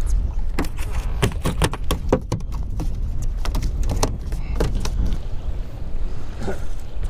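Steady low rumble of wind and waves around a small fishing boat on open water, with a run of irregular sharp clicks and knocks through the first five seconds.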